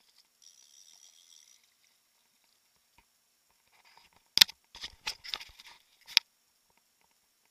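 Hand handling the action camera close to the microphone: a sharp click about halfway through, then a quick run of knocks and scrapes and a last sharp click a couple of seconds later.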